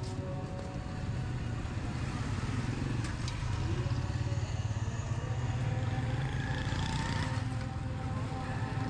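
Street traffic ambience: motor vehicle engines, cars and motorcycles, running steadily with a low, continuous rumble.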